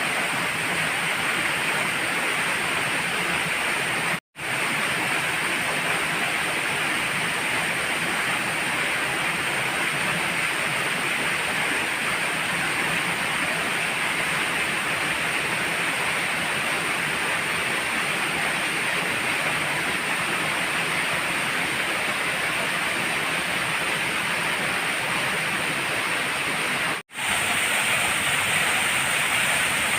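Rushing water of a waterfall's stream, a steady, dense rush, broken by two very short drops to silence, one about four seconds in and one near the end.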